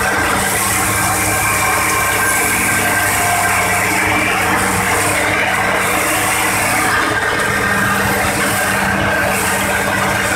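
Excavator diesel engine running steadily at an unchanging speed, heard close to the machine.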